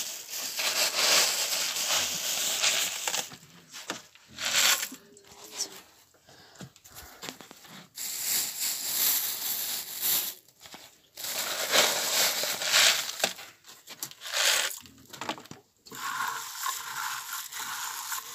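Rustling and crumpling handling noise in irregular bursts of one to three seconds, with short pauses between.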